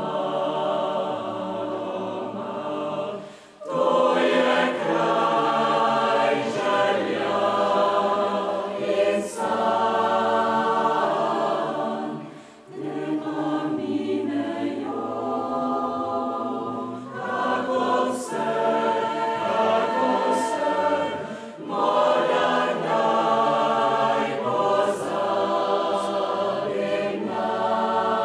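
Mixed choir of men's and women's voices singing in full chords, in long phrases broken by short breaths about every nine seconds, louder after the first breath.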